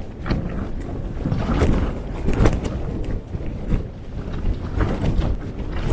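Gale-force wind battering a lightweight summer tent: a steady low rumble of wind with the fabric flapping and snapping in irregular sharp cracks.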